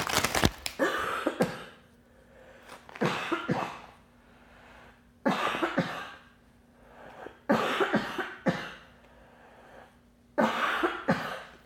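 A woman who is sick coughing hard in repeated fits: five bouts, each of a few coughs, about every two to three seconds.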